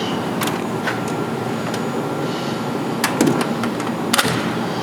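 Steel tool-box drawer sliding on its runners, with a few sharp clicks and knocks over steady background noise.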